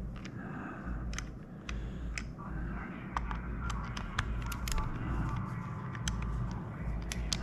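Scattered sharp clicks and small taps of plastic parts being handled inside an opened Logitech Extreme 3D Pro joystick, over low bumping handling noise.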